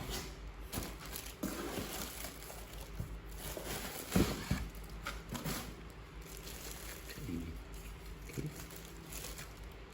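Handling noises of an unboxing: scattered light clicks, taps and short rustles as the vacuum cleaner's plastic parts and packaging are picked up and moved, with one louder knock about four seconds in.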